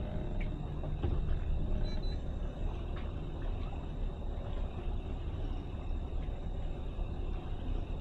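Towboat's twin outboard engines running with a steady low rumble.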